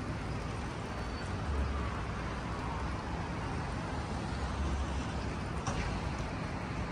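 City street traffic on rain-wet pavement: a steady wash of tyre and engine noise from passing cars, with a couple of low rumbles and a short click near the end.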